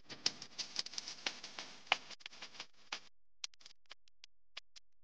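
Faint sound effects of an animated logo intro: a crackling hiss thick with clicks that cuts off sharply about three seconds in, followed by a few scattered single clicks.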